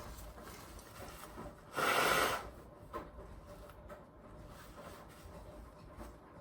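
A woman's single short, noisy breath about two seconds in, lasting about half a second, as a pepper tickle in her nose builds toward a sneeze.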